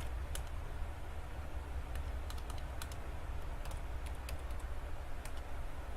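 Computer keyboard keys clicking in irregular keystrokes as code is typed, over a steady low hum.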